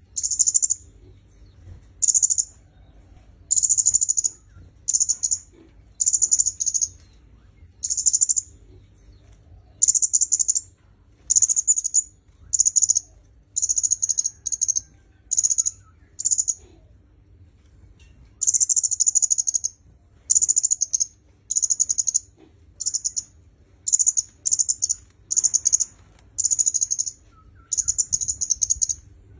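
Kemade kepala merah (red-headed kemade) singing: short, high-pitched chirping phrases repeated about once a second, with a short pause midway.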